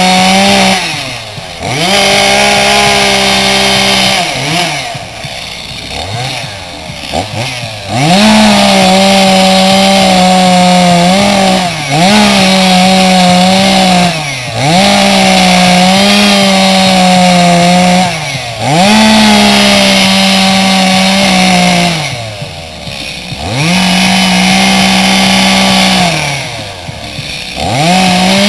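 Gasoline chainsaw cutting into a standing log to carve it, running at full throttle in long stretches. Between cuts it drops back toward idle about seven times and revs straight up again. The longest lull, about four to eight seconds in, has a few short blips of the throttle.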